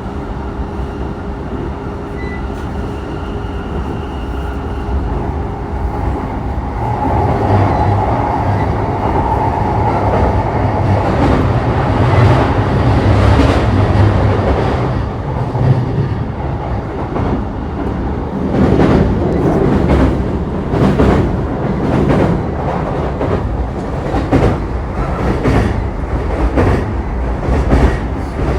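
E233 series 3000 subseries electric commuter train running, heard from inside the car: a steady rumble with a thin motor whine, louder from about seven seconds in. In the second half the wheels click over rail joints at a regular beat.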